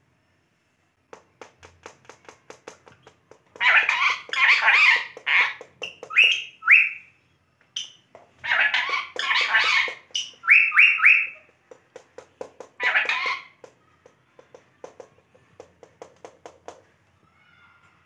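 Indian ringneck parakeets calling: loud harsh squawking calls in several bouts, with short rising whistles (two, then three), between runs of quick clicks.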